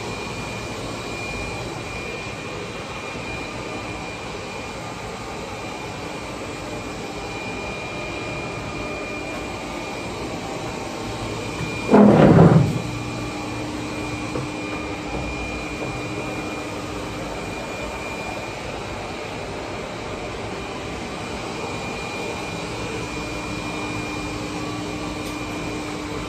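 A steady mechanical hum with a faint high-pitched whine running through it, broken by one short, loud thud about twelve seconds in.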